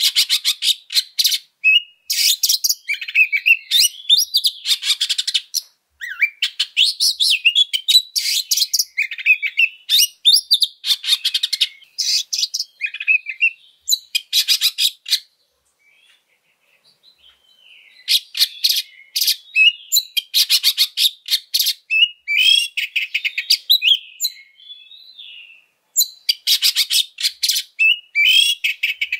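Oriental magpie-robin singing an aggressive fighting-mode song: fast trains of rapidly repeated notes mixed with short whistled phrases. The song breaks off for about two seconds around the middle.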